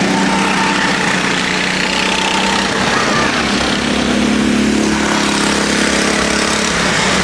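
Small go-kart engines running out on the circuit as karts race past: a steady, loud engine drone, with one engine note growing stronger in the middle.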